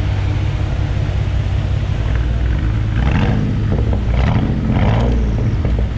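Car engine idling roughly with a second spark plug disconnected, misfiring so the exhaust pulses at the tailpipe. A few short hissing rushes come about three to five seconds in.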